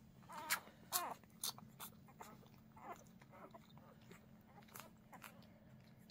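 Newborn whippet puppies nursing: small squeaks and whimpers, several falling in pitch, mixed with wet suckling clicks and smacks. The loudest squeaks and clicks come about half a second and a second in.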